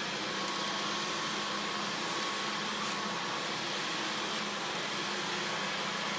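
Dyson V15 cordless stick vacuum running steadily on carpet: an even whir with a thin high whine that does not change.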